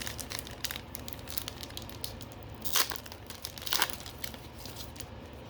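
Foil wrapper of a Pokémon TCG Battle Styles booster pack crinkling and tearing as it is opened, with many small crackles and two louder ones about three and four seconds in.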